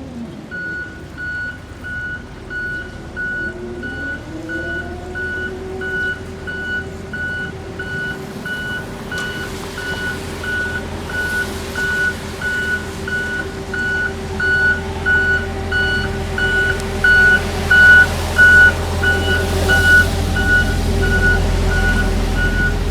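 A construction vehicle's reversing alarm beeping steadily, about one and a half beeps a second, over the rumble of its engine, which grows louder toward the end.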